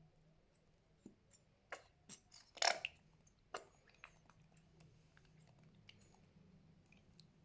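Fluffy slime being squeezed and pressed by hand, giving irregular sticky crackles and small pops, the loudest cluster a little over two seconds in.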